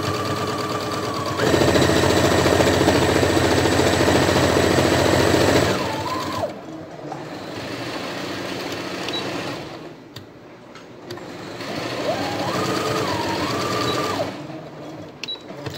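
Electric domestic sewing machine stitching cotton fabric in stops and starts: the motor whines up, runs fast for about four seconds, slows and stops, then runs again briefly a few seconds before the end. A few light clicks follow near the end.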